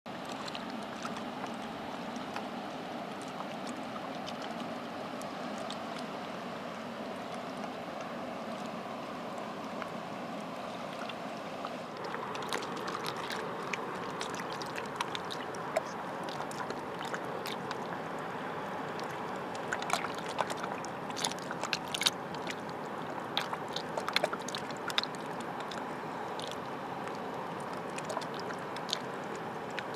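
Shallow sea water lapping and washing against a rocky shore, a steady wash of sound. About twelve seconds in it turns brighter, with many small sharp splashes and ticks over the wash.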